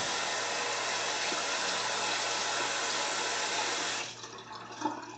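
Bathroom sink tap running cold water for about four seconds, then shut off abruptly, followed by a few short splashes as water is put on the face for a post-shave rinse.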